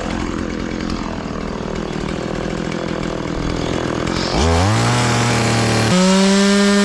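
Two-stroke gas chainsaw idling roughly, then revved up sharply about four seconds in and held at a steady high speed, stepping up to a still higher pitch near the end.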